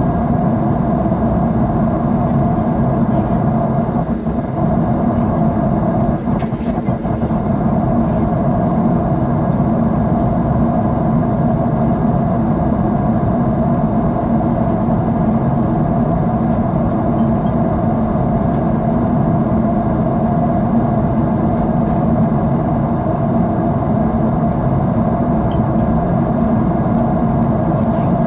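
Jet airliner engine and airflow noise heard inside the cabin: a steady, even rushing hum with a low drone.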